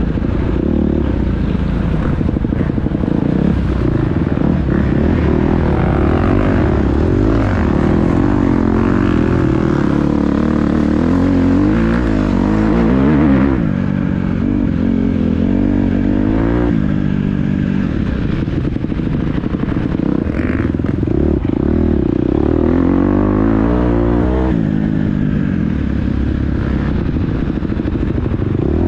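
Dirt bike engine running hard off-road, its pitch rising and falling over and over with the throttle and gear changes, with clattering throughout.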